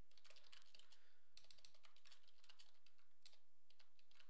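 Typing on a computer keyboard: a fast, uneven run of key clicks.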